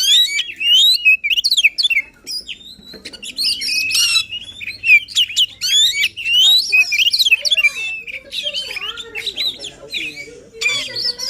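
Oriental magpie-robin (kacer) singing hard: a fast, varied string of sharp whistles, trills and harsh notes, with a brief lull about two seconds in.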